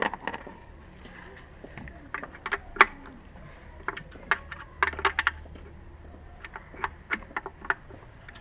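Irregular metallic clinks and taps of hand tools and small metal parts being handled during engine work, about twenty sharp clicks in small clusters, the loudest near the middle.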